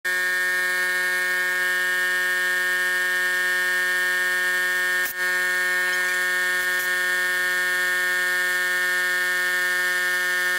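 Air compressor running steadily: a constant, machine-like hum of several steady tones, with a brief break about five seconds in.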